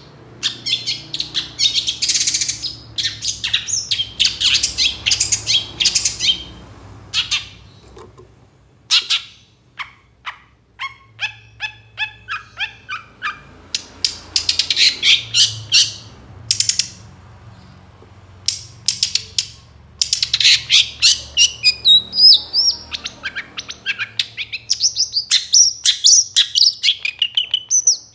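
Long-tailed shrike singing hard: rapid runs of harsh, rasping chatter notes, then a burst of clearer repeated notes, and near the end a quick warbling stretch of up-and-down whistles.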